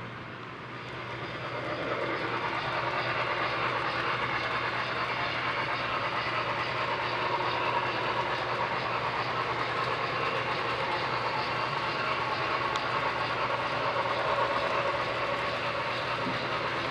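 HO-scale model freight train, pulled by a model New York Central Niagara steam locomotive, running along the track. A steady rolling running noise grows louder about a second and a half in, then holds.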